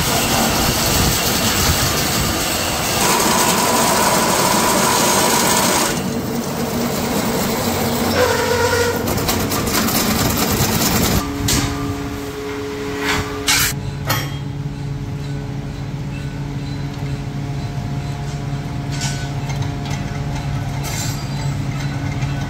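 Electric-motor-driven metalworking machines running: a loud, harsh noise at first, changing several times, a few sharp metallic knocks a little past halfway, then a steady motor hum for the rest.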